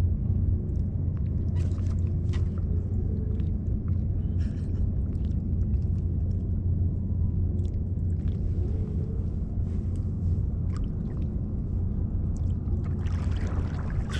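Steady low rumble of wind buffeting the microphone, with scattered faint ticks and small splashes of water.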